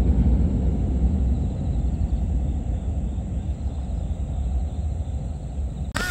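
Airplane flying low overhead: a deep engine rumble that slowly fades.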